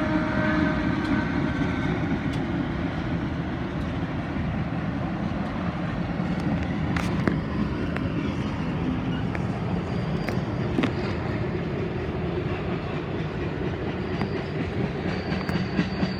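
Steady rumble of a moving vehicle, with a few faint clicks.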